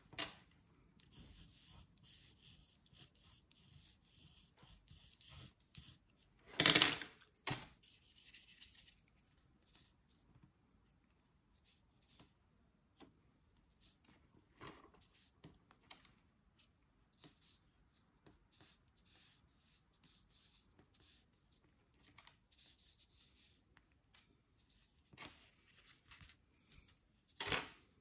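Faint scratching and rubbing of a brush pen stroking across textured watercolour paper, with scattered small ticks. A short, louder rustle comes about seven seconds in, and another near the end.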